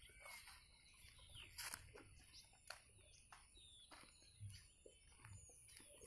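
Faint bird calls: scattered short chirps, several sliding down in pitch, with a few soft clicks and rustles in between.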